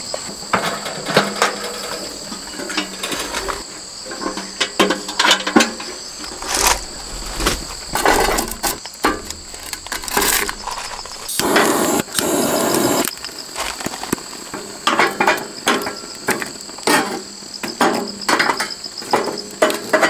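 Clattering clicks and knocks of charcoal briquettes and the metal box grill being handled, with a butane torch hissing for about two seconds near the middle as it lights the charcoal. Crickets chirp steadily behind.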